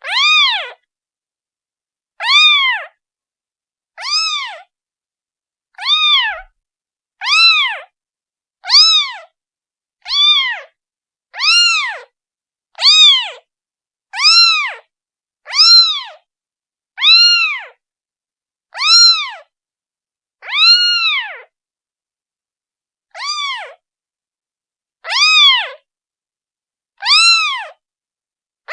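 Day-old kitten meowing over and over, calling for its mother: short, high calls, each rising and then falling in pitch, about one every one to two seconds with silence between.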